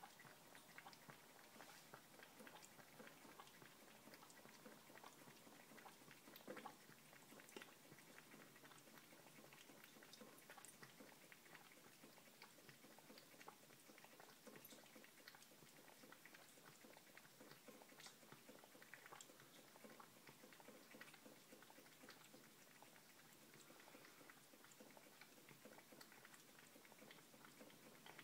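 Cat lapping milk from a ceramic bowl with its tongue: a quiet, steady run of small wet clicks, one a little louder about six and a half seconds in.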